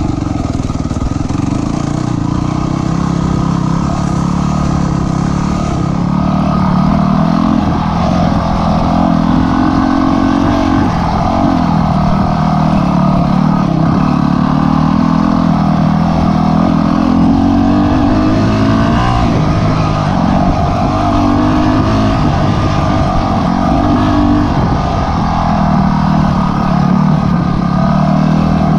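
Dirt bike engine running while riding along a trail, its pitch rising and falling as the throttle is worked.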